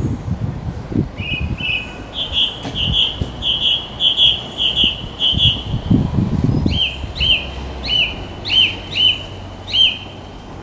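A songbird singing. First comes a run of quick repeated double notes, then, after a short pause, a series of slurred down-swept whistles about two a second.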